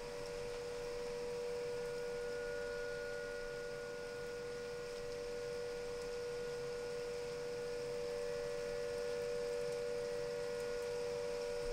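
Fire station siren holding one steady note, two close pitches with fainter overtones, neither rising nor falling. It has stayed on since a lightning strike, and the recordist thinks lightning may have hit it.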